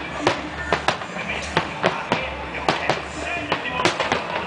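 Aerial fireworks shells bursting in quick, irregular succession: sharp bangs at about three to four a second, some overlapping.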